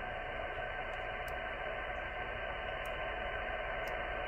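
Xiegu G90 HF transceiver receiving on upper sideband: a steady hiss of band static from its speaker, with no treble above it. The hiss grows slightly louder as the RF gain is turned up.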